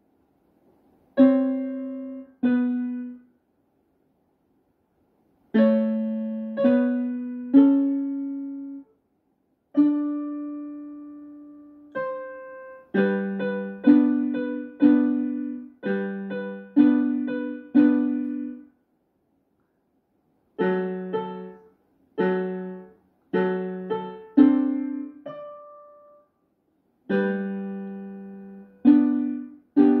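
Electronic keyboard on a piano voice playing a simple melody in separate, fading notes, with two stops of about two seconds between phrases.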